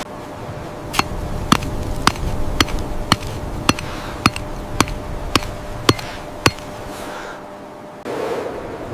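Sharp striking impacts, about eleven in a steady rhythm of roughly two a second, each with a brief metallic-sounding ring. They stop a little past the middle.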